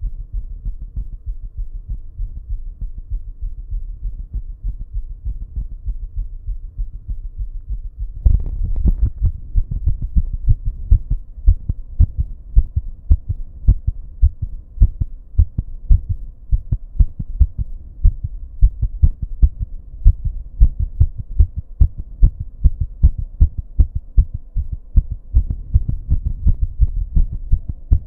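A fast human heartbeat picked up close to the chest, thudding at roughly two beats a second, over a steady low electrical buzz. About eight seconds in, the beats suddenly grow louder and sharper after a brief rustle.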